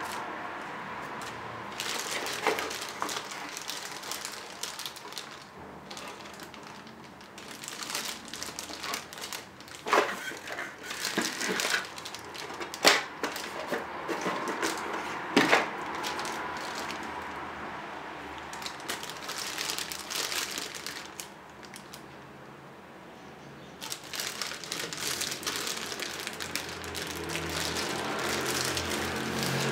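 Headphone packaging being handled and opened: irregular crinkling and rustling, with a few sharp clicks and knocks in the middle.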